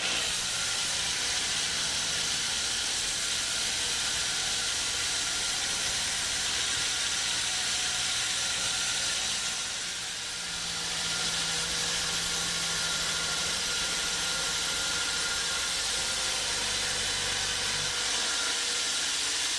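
Sawmill machinery running: a steady high hiss, with a low engine hum underneath that shifts lower in pitch in the second half.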